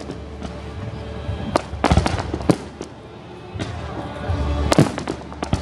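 Aerial fireworks shells bursting in a display: several sharp bangs in quick succession over a low rumble, the loudest about two seconds in and near the end, with music playing underneath.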